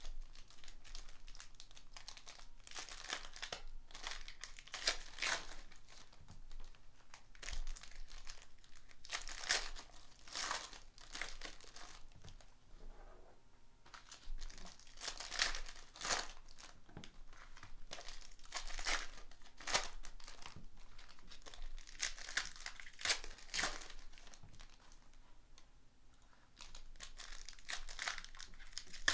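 Foil packs of 2018 Panini Prizm football cards crinkling and tearing as they are opened by hand, along with the rustle of the cards being handled and squared into stacks. The rustling comes in repeated bursts a few seconds apart.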